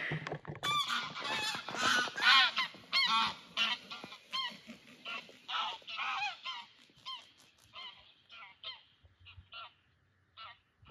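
A flock of geese honking, a rapid run of short calls that grows fainter toward the end.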